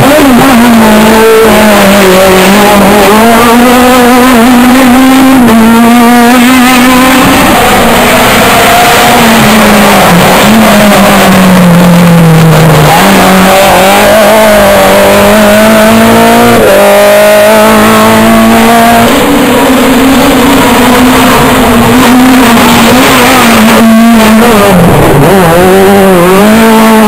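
Several rally cars passing one after another on a tarmac stage, loud throughout. Their engines rise and fall in pitch as they brake into the bend and accelerate out of it, with quick upshifts.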